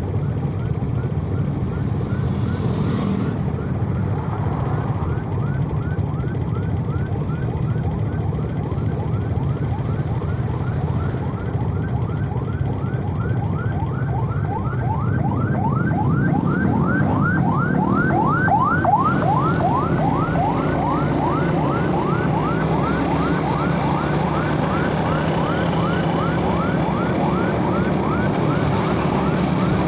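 Emergency vehicle siren in fast yelp mode, about three short falling wails a second, growing louder midway and then holding on. Under it runs a steady motorbike engine and traffic noise.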